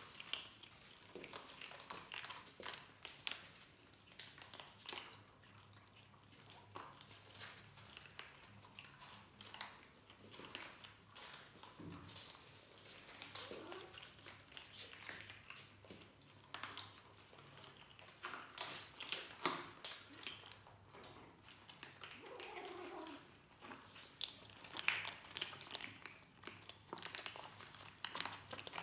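Several young kittens crunching dry kibble from a plastic tray: a faint, irregular run of small crunches and clicks throughout.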